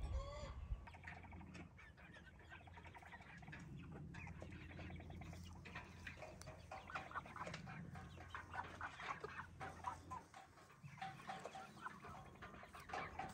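A flock of chickens clucking, with many short calls overlapping throughout, faint against a steady low hum.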